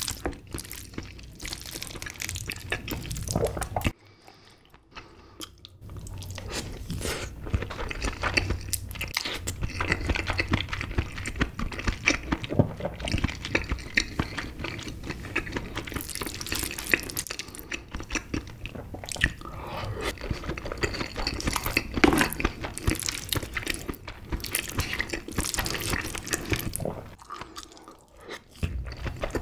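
Close-miked eating of king crab meat: a wooden spoon scrapes and scoops in the crab's shell, between wet chewing and mouth sounds. It goes quiet briefly about four seconds in and again near the end.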